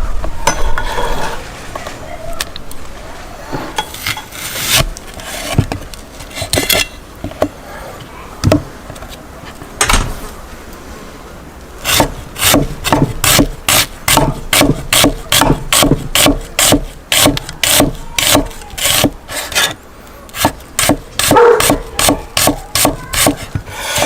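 Scattered scrapes and knocks, then from about halfway a steady run of short rasping strokes on wood, about two a second.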